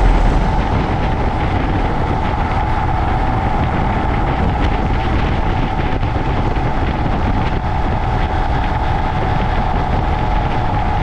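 Royal Enfield Himalayan single-cylinder motorcycle engine running steadily at road speed while riding, with heavy wind noise over the microphone.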